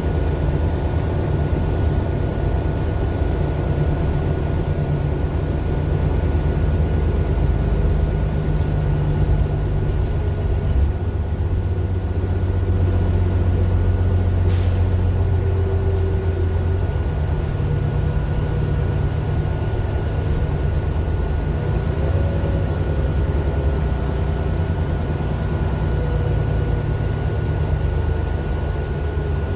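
Daimler OM 457 hLA straight-six diesel of a 2009 Mercedes-Benz Citaro LE city bus running, a loud low drone that swells and eases a few times. A faint steady high whine sits over it.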